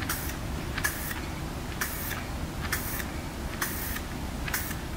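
Aerosol can of automotive touch-up paint fitted with a trigger spray handle, sprayed in six short hissing bursts about a second apart, over a low steady background rumble.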